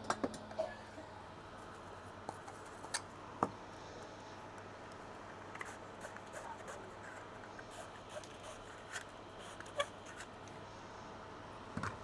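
Scattered light clicks, taps and short scrapes of a soldering iron and metal tools on a laptop circuit board as old solder is cleaned off the charging-port pads, over a faint steady hum.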